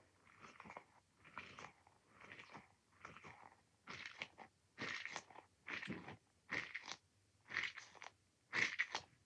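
A squishy toy ball being squeezed over and over, about once a second, each squeeze a short crunchy squish. The squeezes get louder in the second half.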